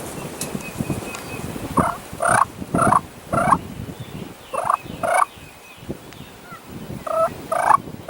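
Turkey calls: short, rough notes around 1 kHz in groups of two to four, roughly half a second apart, over wind rumbling on the microphone.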